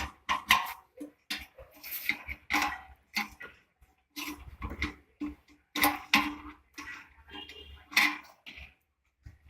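A run of irregular clicks and knocks in quick succession, with a few short pauses between them.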